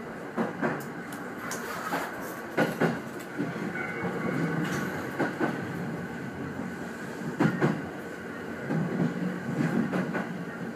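209 series electric train running, heard from inside the front car: a steady rumble with sharp clacks of the wheels over rail joints and points at irregular intervals.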